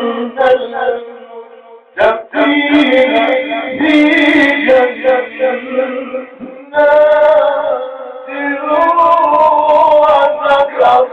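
A man reciting the Quran in a melodic, drawn-out tajweed style, long vowels held and ornamented in wavering pitch. Two short breaths between phrases come about two and six and a half seconds in.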